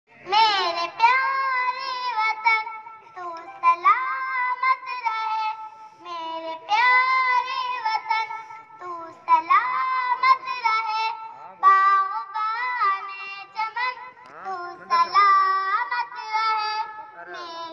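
A child's high voice singing a melodic song in phrases of a second or two, with sliding notes and short breaks between lines.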